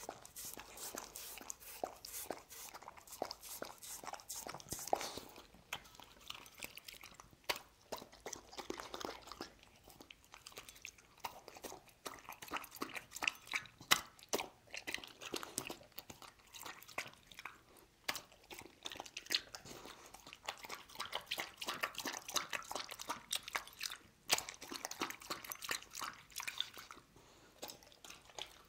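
A dog eating chicken soup from a ceramic bowl: lapping up the broth and chewing chunks of chicken, a close, rapid run of wet clicks and crunches with short pauses.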